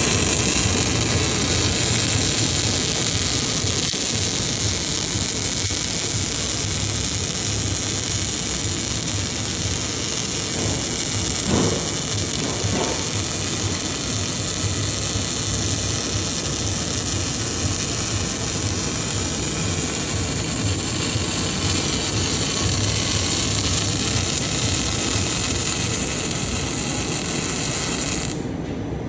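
Circumferential weld being run on a hydraulic cylinder by a CNC welding setup: a steady, dense arc hiss over a low machine hum, stopping abruptly about a second before the end as the arc is cut.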